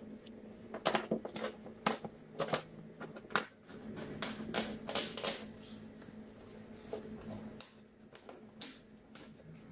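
Cardboard shipping box being torn open by hand: an irregular run of sharp crackles and rips of cardboard and packing tape, thinning out over the last few seconds.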